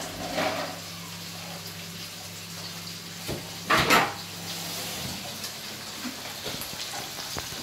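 Fish sizzling faintly in a frying pan over a steady low hum, with one brief loud noise about four seconds in. Near the end a wooden spatula clicks and scrapes against the pan as the fish is stirred.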